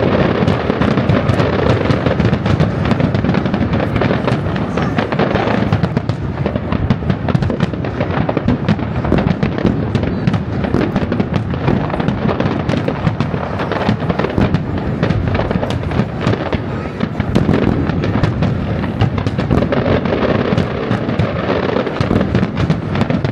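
Professional firework display: a dense, unbroken barrage of aerial shell bursts and crackling, with bangs following one another without a pause.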